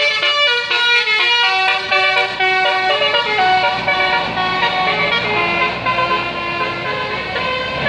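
Bus 'telolet basuri' melodic horn playing a fast tune of short, stepping notes. A low rumble comes in underneath about halfway through.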